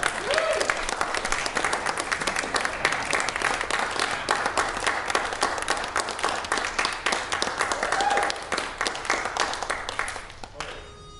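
Small audience applauding, with a couple of short voice calls rising and falling over the clapping; the applause dies away near the end.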